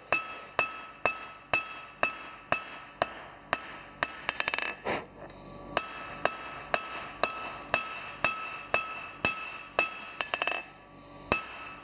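A 2.5 lb cross-peen hammer striking hot steel on an anvil, forging a square bar's corners down into an octagonal taper: a steady run of ringing blows, about two to three a second, with a short break a little past halfway and another near the end.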